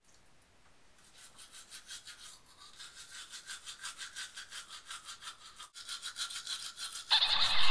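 Brisk scrubbing of a manual toothbrush on teeth, about four or five strokes a second, growing louder. Near the end a sudden, much louder sound cuts in.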